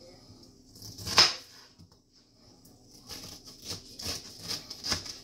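Kitchen knife cutting through pineapple rind on a plastic cutting board. A sharp knock comes about a second in, then a quick run of slicing strokes, about four or five a second, near the end.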